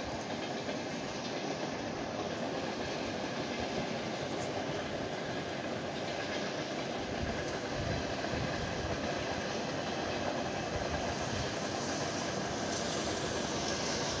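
Freight train of grain hopper wagons hauled by a 2TE116 diesel locomotive rolling past, a steady continuous rumble of wheels on rails.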